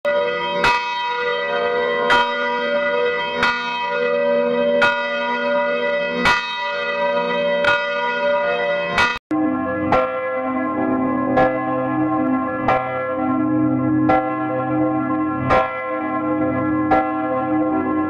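A single swinging church bell tolling, its clapper striking about every second and a half, each stroke leaving a long ringing hum. About halfway through there is a brief dropout, after which the bell tolls on with a changed tone.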